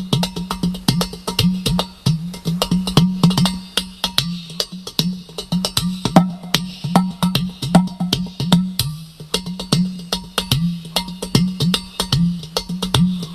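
Udu clay pot drum played by hand: rapid sharp taps on the clay body mixed with deep bass tones that bend in pitch, in a dense, continuous rhythm.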